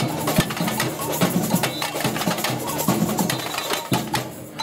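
Samba bateria street percussion band playing a fast, driving rhythm on surdo bass drums, smaller hand-held drums and shakers, with a brief break in the playing near the end.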